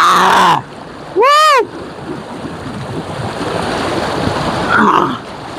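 Shallow river rapids rushing steadily over rocks. Near the start, a man lets out two loud shouts at the cold water; the second is a long rising-and-falling yell about a second in.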